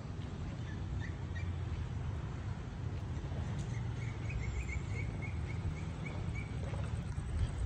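Steady low outdoor rumble, with a small bird chirping: two short high chirps about a second in, then a quick run of about ten chirps midway.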